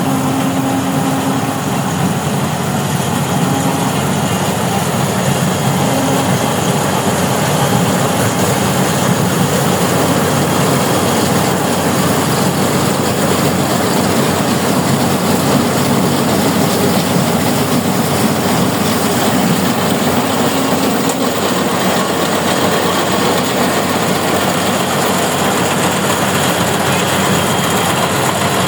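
Rice combine harvester running steadily: a loud, even engine hum under a dense mechanical clatter that does not let up.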